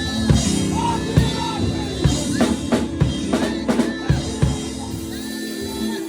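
Live gospel praise music with a drum kit keeping the beat under sustained chords, with voices singing over it.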